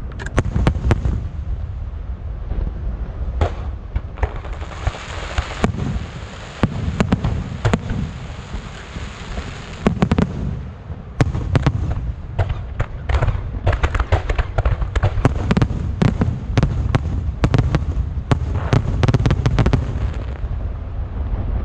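Fireworks going off: rapid, irregular sharp cracks and bangs over a continuous low rumble, with a sustained hissing crackle from about four to ten seconds in.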